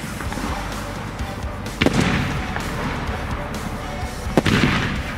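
Aerial firework shells bursting high overhead: two sharp bangs, about two seconds in and near the end, each followed by a brief crackling tail.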